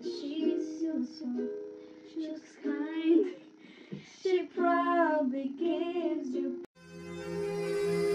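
A ukulele strummed while young female voices sing along, with held, wavering notes. Near the end it cuts off abruptly and gives way to backing music with long held tones.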